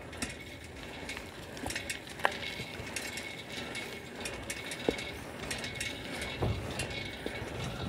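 Bicycle riding along a paved road: scattered light clicks and rattles over a steady hiss, with the phone rubbing against a shirt.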